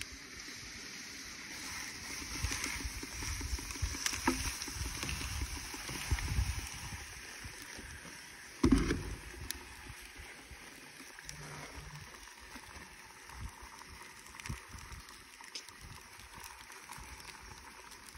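Liquid nitrogen boiling off in a cooler around an ice-cube tray, a steady soft hiss, with uneven low rumbles of wind buffeting the microphone and one louder low bump about halfway through.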